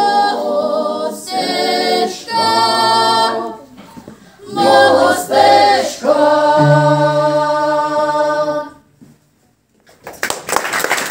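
Choir of mostly women's voices singing a cappella in harmony, in short phrases broken by pauses, ending on a long held chord about two-thirds of the way through. After a moment of silence, applause breaks out near the end.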